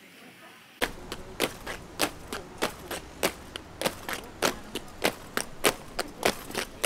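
A squad of ceremonial palace guards marching in step on stone paving: sharp boot strikes about every 0.6 seconds, starting about a second in, with lighter footfalls between.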